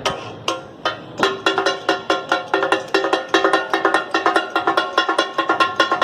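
Steel spatulas rapidly clanging and chopping on a flat iron katakat griddle, the rhythmic 'kata-kat' that gives the dish its name, as offal is chopped and stirred. The strikes start sparse and quicken to a fast, even beat after about a second, each ringing at the same metallic pitches.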